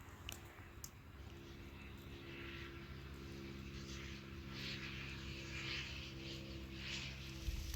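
An engine running with a steady hum.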